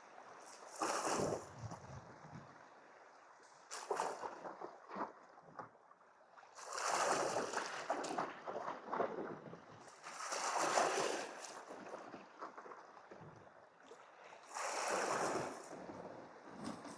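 Sea waves washing against shoreline rocks, surging and falling back in swells every few seconds.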